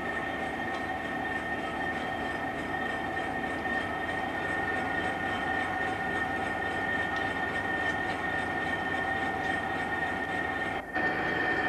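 Steady running drone of a diesel rail breakdown crane's engine at work during a lift, with a held whine over it; the sound dips briefly near the end.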